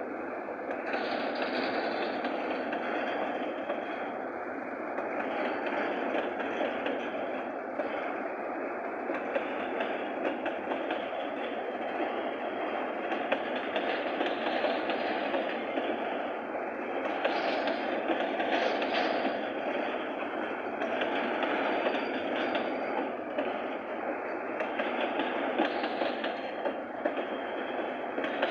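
Freight train rolling past: a steady noise of wheels on rail, with occasional short knocks.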